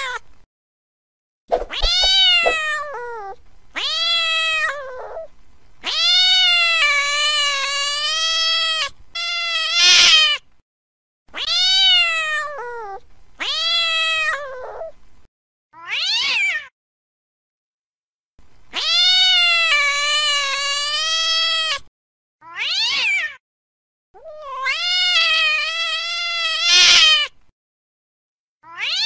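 Cats yowling as in a fight: a string of long, drawn-out, wavering yowls with short breaks between them, mixed with a few shorter falling meows. Twice a yowl breaks into a harsh, noisy burst at its end.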